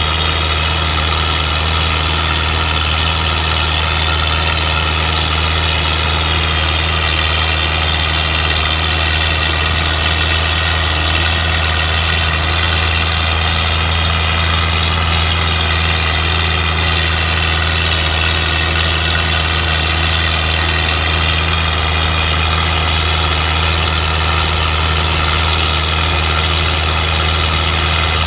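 Belarus 510 tractor's four-cylinder diesel engine working hard under a heavy load in high gear, running steadily. Its pitch sags slightly midway and then picks up again.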